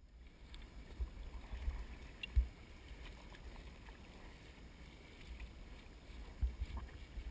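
Open-water ambience picked up by a camera low over the water on a paddleboard: a low wind rumble on the microphone with faint water sounds, broken by a few soft thumps, the loudest about two and a half seconds in.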